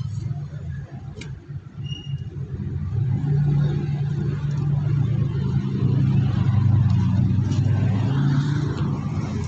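A motor vehicle's engine running with a low, steady hum that grows louder about three seconds in.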